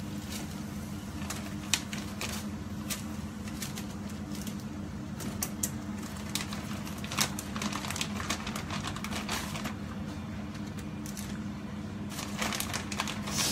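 Plastic packaging and parchment paper crinkling and rustling in handling, with scattered light clicks, thickest in the middle and again near the end, over a steady low hum.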